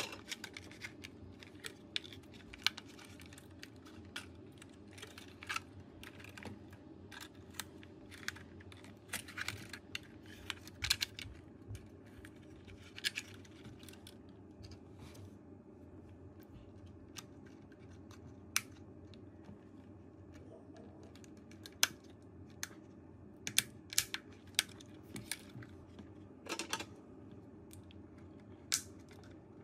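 Irregular light clicks and taps of small plastic parts being handled: the DJI Mini 4 Pro drone's shell and top cover being fitted back together, over a faint steady low hum.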